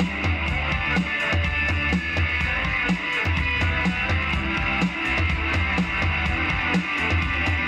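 Rock band playing an instrumental passage without vocals: a drum kit keeps a steady beat of bass drum and regular high ticks under electric guitar.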